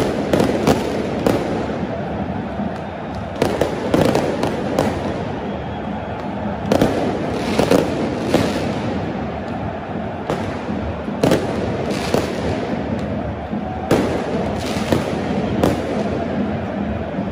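Fireworks and firecrackers going off in a stadium stand: about fifteen sharp bangs at irregular intervals, some in quick clusters, over the steady din of a large crowd.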